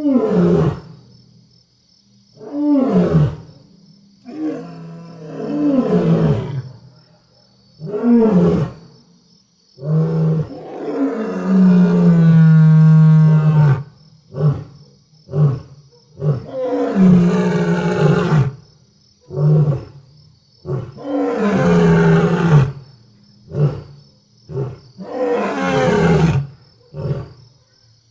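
Lions roaring at night: a bout of repeated roars that fall in pitch, with one long held roar, then a quicker run of shorter grunting roars. A faint steady high-pitched tone runs underneath.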